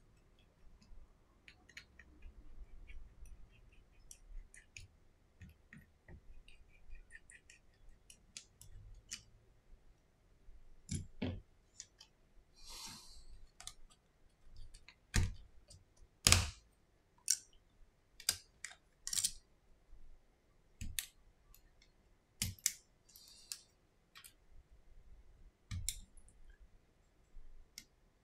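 Irregular small clicks, taps and knocks of hands and tools working on the opened plastic body of a Samsung Galaxy A10 smartphone as internal parts are lifted out and set down, with two short scraping sounds about 13 and 23 seconds in. The loudest clicks come about 15 to 16 seconds in.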